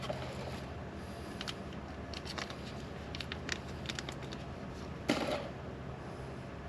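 Light clicks and taps of brake caliper parts being handled by hand, with one louder knock about five seconds in, over a steady low hum.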